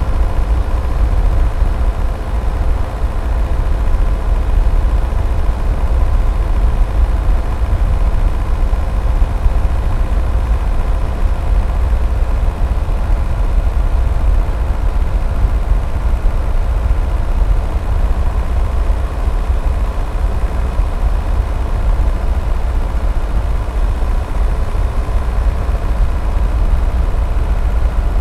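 Skoda Octavia II's 1.9 TDI four-cylinder diesel engine running steadily as the car drives, heard from a camera mounted outside on top of the car, with heavy wind rumble on the microphone. A steady engine hum sits over the rumble and grows fainter about halfway through.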